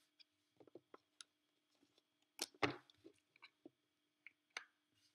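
Faint, scattered clicks and taps of rubber loom bands being stretched and snapped onto the plastic pegs of a loom, with the loudest cluster of taps about two and a half seconds in.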